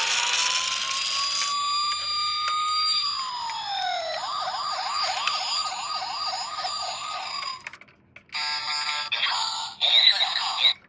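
Electronic toy police-car siren: one slow rising wail that drops away, then a quick warbling yelp at about three cycles a second, cutting off about two-thirds of the way through. A different, choppier electronic sound starts near the end.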